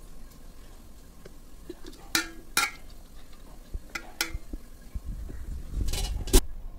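A metal spoon clinking and scraping against a metal cooking pot as boiled rice is spread into an even layer, with sharp clinks in pairs about two, four and six seconds in.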